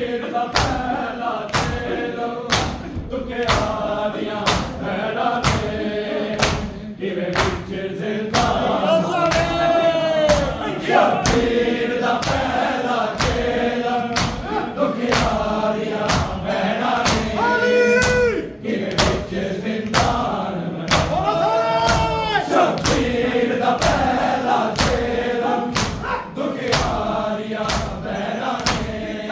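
Men's voices singing a Punjabi noha lament in chorus over congregational matam: hands striking chests in unison, about three beats every two seconds.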